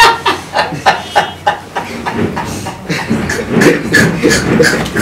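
A man laughing hard in a rapid run of short, repeated bursts, easing off briefly in the middle before picking up again.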